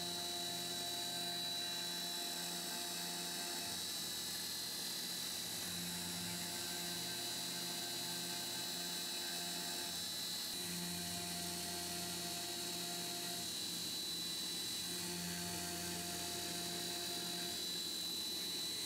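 Tormach PCNC 1100 CNC mill spindle driving a two-flute carbide endmill through aluminium plate in a deep high-speed pass. A steady high whine runs under lower cutting tones that break off and resume every few seconds as the tool works along the cut.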